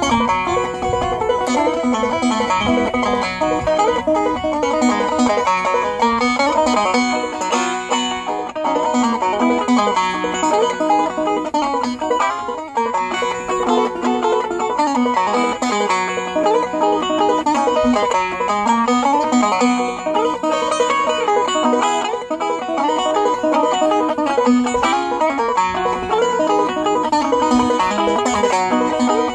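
Five-string banjo played solo in clawhammer style: a steady, rhythmic tune of bright plucked notes.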